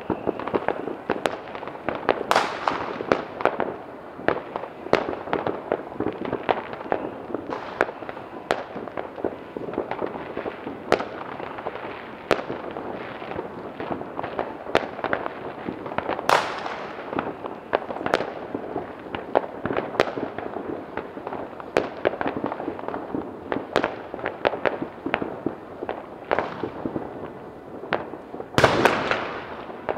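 Many fireworks and firecrackers going off at once: a continuous crackle of overlapping bangs. Louder bursts come about two seconds in and about sixteen seconds in, and the loudest, longest one comes near the end.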